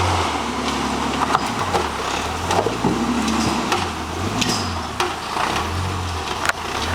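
Off-road vehicle engine crawling over rocks, its revs rising and falling several times as the throttle is fed in and backed off, with scattered sharp knocks and crackles from the tires working over rock.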